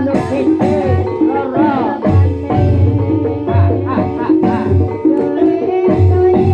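Live Javanese gamelan music (gending) for an ebeg dance: deep drum strokes at an uneven beat under held instrument tones, with a wavering sung vocal line about a second and a half in.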